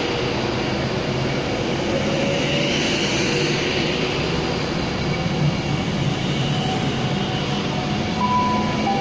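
Virgin Pendolino (Class 390) electric train at the platform: a steady hum and rush from its running equipment. A short high beep sounds near the end.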